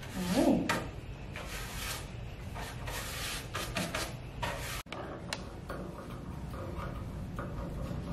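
Slicker brush stroked through a puppy's thick curly coat: a run of short, scratchy swishes, one after another. They stop abruptly a little over halfway in, leaving fainter scattered ticks.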